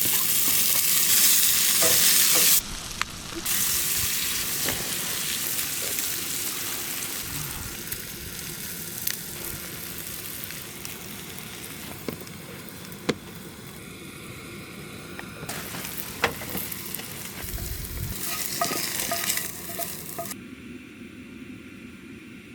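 A steady hissing, sizzling noise with scattered sharp clicks, loudest for the first couple of seconds and then fading slowly; the level changes abruptly twice.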